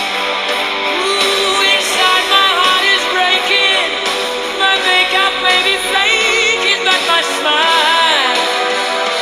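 Rock music playing, with a sung melody over guitar accompaniment.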